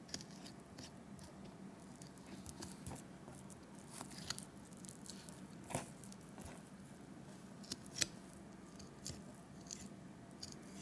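Boning knife cutting and scraping along the bone of a raw rabbit leg on a plastic cutting board, with meat being pulled and torn from the bone: faint, scattered small clicks and wet tearing. A faint steady hum runs beneath.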